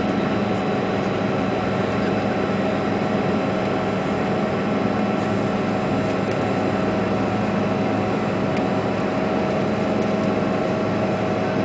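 Steady cabin drone of a CRJ regional jet climbing after takeoff: its rear-mounted turbofan engines and the airflow, with a few steady humming tones running under the noise.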